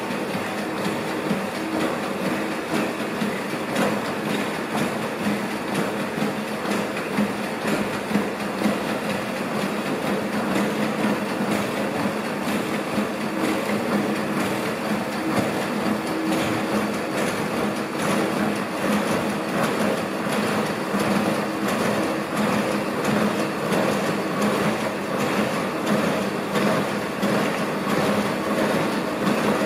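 ANYmal quadruped robot trotting: its feet tap the platform in a steady rhythm over the hum of its joint motors. The step rhythm quickens near the end as the gait period is shortened.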